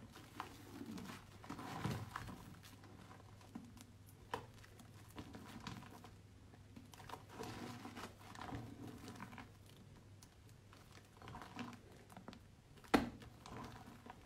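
Hands squeezing and kneading soaked, mushy soap paste: irregular wet squelching and crackling over a faint low hum, with one sharp click near the end.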